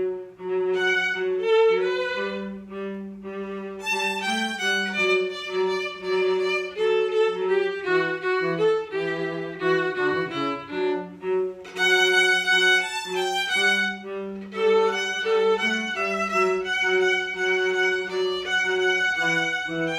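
Violin playing a melody over held lower notes, with bowed-string tone throughout.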